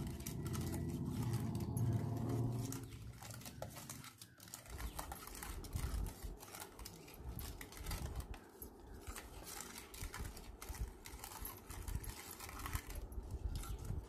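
Steel spoon stirring colostrum milk and sugar in a stainless steel bowl, clinking and scraping against the bowl in quick irregular ticks. A low hum runs through the first three seconds, then stops.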